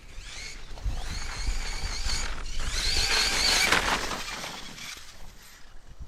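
Arrma Kraton EXB RC truck's brushless motor on a 6S battery whining at speed as the truck drives past, the high whine swelling to its loudest about three and a half seconds in and then fading away.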